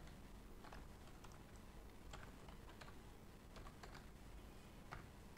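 Faint computer keyboard keystrokes: scattered, irregularly spaced clicks as code is typed.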